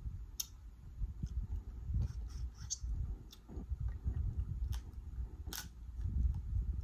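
Boiled crab shell being picked apart by hand close to the microphone: a handful of sharp cracking clicks over soft, low handling noise.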